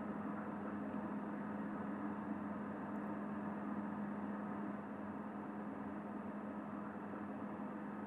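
A steady droning hum with an even hiss beneath it, constant and without any beat or rhythm.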